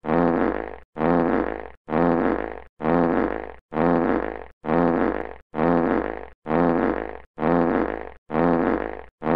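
A fart sound effect looped over and over: the same low, buzzing fart, just under a second long and fading out, repeats about once a second with a brief silence between.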